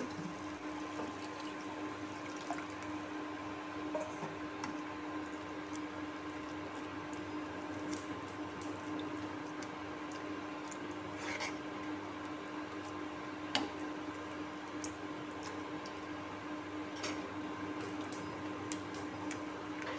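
Steel spoon stirring water into a thick mashed chickpea-and-potato ragda in a nonstick pan: soft wet squishing with a few sharp clicks of the spoon against the pan, over a steady hum.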